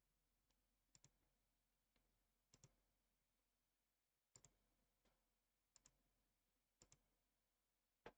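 Faint computer mouse clicks, mostly in quick pairs like double-clicks, about six times, a second or two apart.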